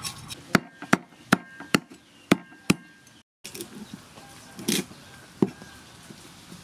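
Metal cleaver scaling a fish on a wooden chopping board: six sharp knocks of the blade against the board, about two and a half a second, each with a brief metallic ring. After a short break come a softer scrape and one more single knock.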